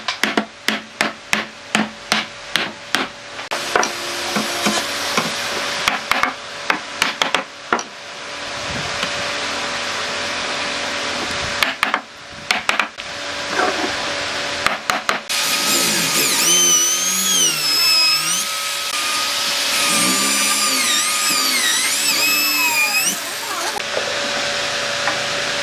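A wooden mallet knocking the joints of a solid-wood door frame together, about three blows a second, then a few scattered knocks. From about eight seconds in, a power tool runs steadily, with a wavering whine from about halfway on.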